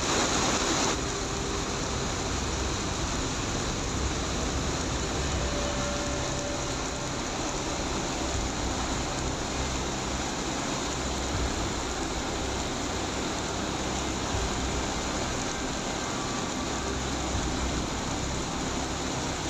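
Heavy rain pelting a parked car and the pavement, a dense, steady hiss.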